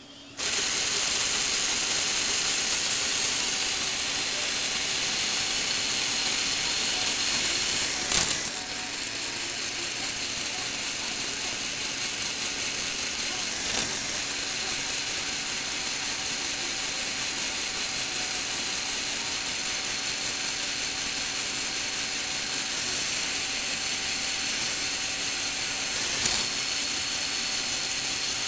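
Lego Technic three-speed gearbox with plastic gears, driven by an electric motor, whirring and chattering steadily once it starts just after the beginning. A sharp click about eight seconds in, as the gears shift, after which it runs a little quieter. Fainter clicks come twice later.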